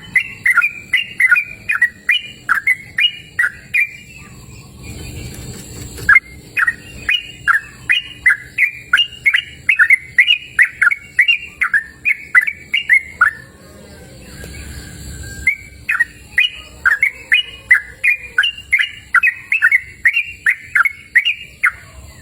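Sooty-headed bulbul (trucukan) singing a fast series of clear whistled notes, each sliding downward, about three a second, in three long bouts separated by short pauses.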